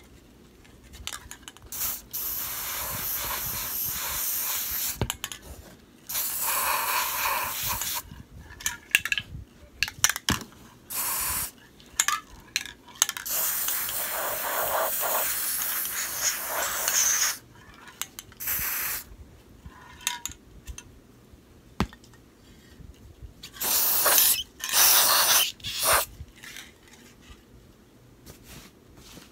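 Aerosol spray-paint can spraying in several hissing bursts, the longest about four seconds, with two short bursts near the end. A few clicks fall between the bursts.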